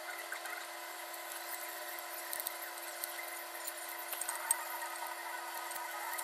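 A few light metallic clicks and clinks as a steel cam sprocket and timing chain are handled and fitted onto the camshaft, the sharpest about four and a half seconds in, over a steady high hum.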